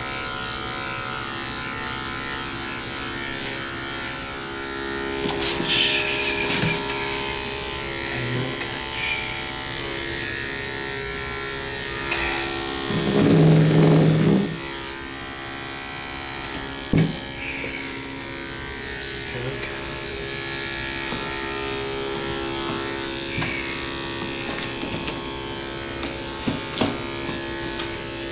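Electric dog grooming clippers running with a steady buzzing hum as a small dog is shaved. About halfway through there is a short, loud pitched vocal outburst as the dog struggles, with a few brief knocks and scuffles around it.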